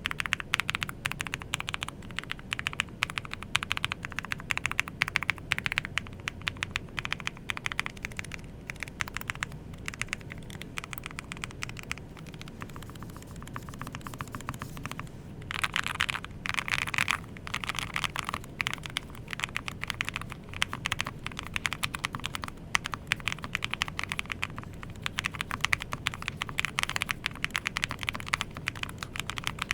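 Typing on an IQUNIX MQ80 low-profile mechanical keyboard: a steady stream of quick, irregular key clicks, with a denser, louder flurry a little past halfway.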